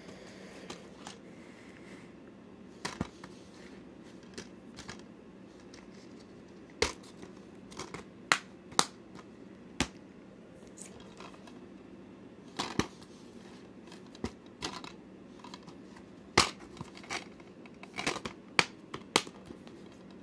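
Plastic DVD cases being handled: a dozen or so sharp clicks and clacks at irregular spacing as cases are picked up, opened and set down, over a faint low hum.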